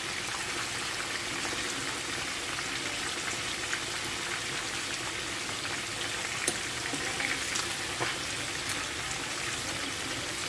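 Meat frying in hot oil in a pan: a steady sizzle with scattered crackles and pops.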